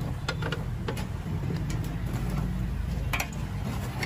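Metal scoop digging into a bin of lump charcoal, giving several sharp clinks and scrapes over a steady low rumble.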